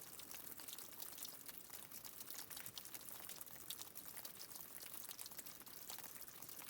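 Water trickling and splashing steadily, a fine, unbroken patter of many small drops and splashes.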